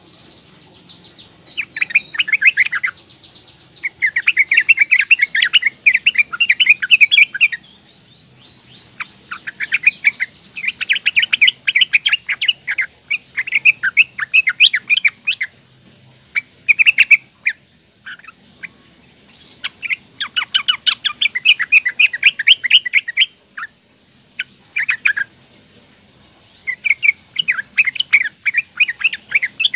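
Yellow-vented bulbul, a young female, calling in rapid runs of short chattering notes. The runs come in bursts of one to four seconds with short pauses between them.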